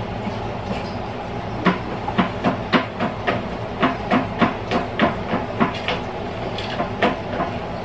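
A run of short, sharp clicks and taps, irregular at about two or three a second, starting about two seconds in and stopping shortly before the end, over a steady low hum.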